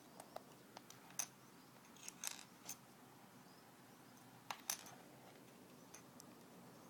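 Faint, scattered clicks and taps of a small plastic toy airstair truck against a wooden floor, with a little cluster about two seconds in and a sharper pair a couple of seconds later.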